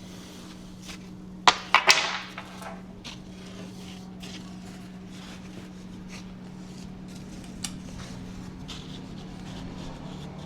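Three sharp wooden knocks in quick succession about a second and a half in, from wooden stakes being handled and knocked together. Light clicks and a steady low hum follow.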